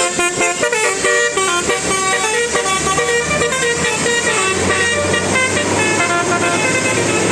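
Indonesian bus 'telolet basuri' musical horn playing a fast tune of stepped notes. After about two and a half seconds the notes grow fainter and sparser over the steady hum of the bus.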